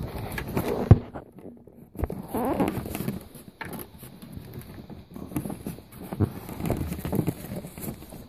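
Irregular rustling, scraping and small knocks of hands working a small screw into the rear trim of a convertible top, with a sharp click about a second in.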